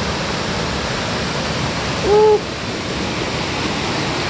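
Mountain stream cascading over boulders into a pool, a steady rush of white water running high after recent rain. About two seconds in, a short single-note call rises and falls once, louder than the water.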